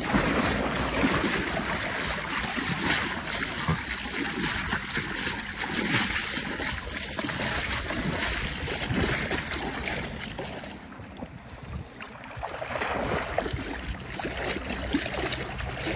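Continuous sloshing and splashing of lake water from wading through the shallows, with two golden retrievers swimming just ahead. It drops quieter for a couple of seconds about two-thirds of the way through.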